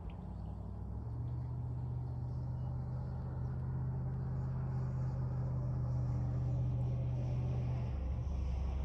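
A motor vehicle's engine running close by, growing louder over the first few seconds as it draws near; its note drops near the end.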